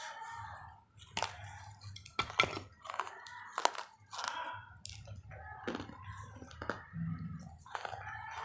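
Pieces of a fired-clay matki pot being bitten and chewed: a series of sharp cracks as shards snap between the teeth, with gritty crunching between the bites.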